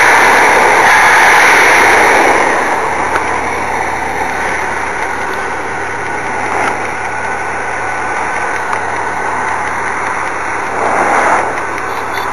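AMC Pacer engine running after sitting unused since 1986: louder for the first two seconds, then settling to a steady idle, and briefly louder again near the end.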